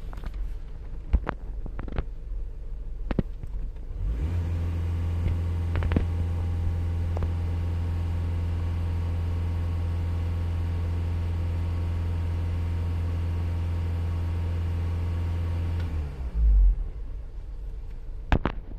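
Volkswagen 2.0 TDI diesel engine running with a rough idle, which the owner puts down to a faulty fuel pressure regulator. About four seconds in, a steady low drone sets in and holds. It drops away near the end with a thump. A few sharp clicks come before it.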